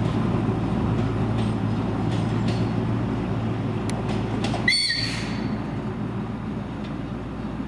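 TU4 narrow-gauge diesel locomotive running as it pulls a carriage away, its engine hum and rumble slowly fading. About two-thirds through comes one brief, high, whistle-like squeal.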